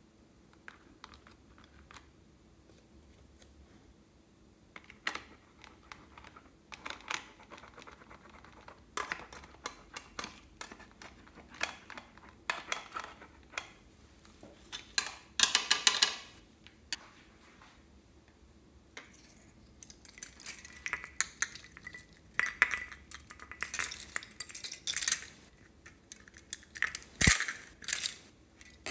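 A thin metal pick scraping and tapping at the hard plastic pans of toy makeup palettes: a run of small scrapes and clicks that starts about five seconds in and grows busier, with one sharp knock near the end.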